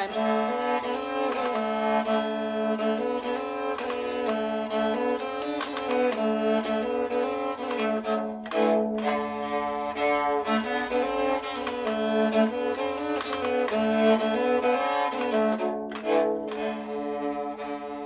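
Moraharpa, the old three-string Swedish keyed fiddle, bowed on two strings at once: a tune stopped with the keys over a steady drone from its middle string, pausing briefly twice.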